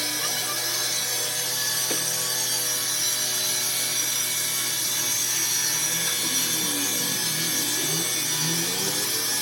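A power tool running steadily against the work, a continuous grinding, sawing kind of noise.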